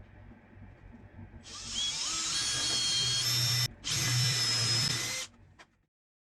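Power drill running at low load, then drilling into wood: a loud, high-pitched cutting whine from about a second and a half in, broken once briefly, stopping about five seconds in.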